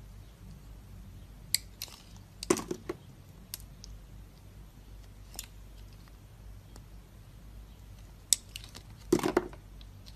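Knife cutting dry soap: a few crisp clicks and crunches in two short clusters, about two seconds in and again near the end.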